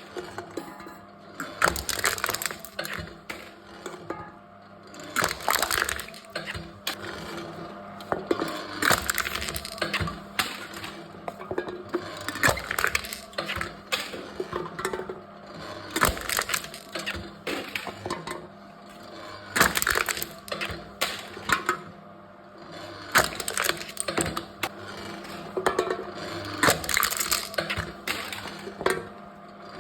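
Aluminium drink cans being crushed one after another by a crushing machine: repeated bursts of crumpling, crackling metal every second or few, over a faint steady hum.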